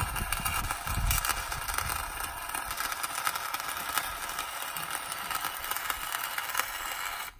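Off-road vehicle on the move, heard as a steady hiss full of crackling and rattling clicks.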